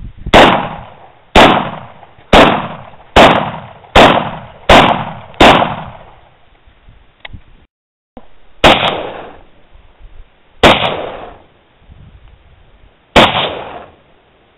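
Romak 1 AK-47 rifle in 7.62x39 fired semi-automatically, ten shots in all, each with an echoing tail. Seven come in quick succession, about one a second, then after a short pause three more spaced about two seconds apart.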